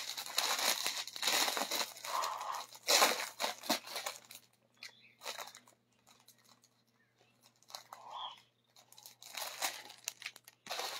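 Clear plastic garment packaging crinkling and rustling as it is handled. It comes in bursts for the first few seconds, goes quiet in the middle, and picks up again near the end.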